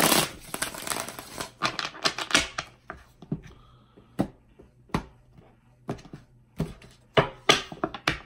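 A deck of tarot cards being shuffled: a dense rustle of cards in the first second, then a string of separate sharp card snaps and taps, about one or two a second, as the deck is squared and cards are handled over the table.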